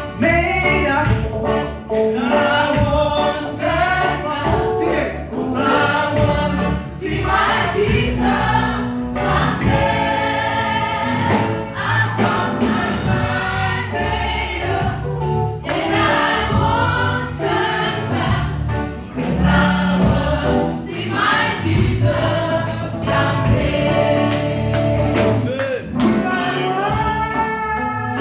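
Worship team and congregation singing a Zulu gospel song together in chorus over live band backing, loud and continuous.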